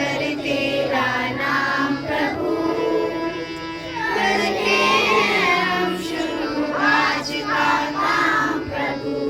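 Children singing a Hindi devotional prayer song together, with steady held low notes from an accompanying instrument underneath.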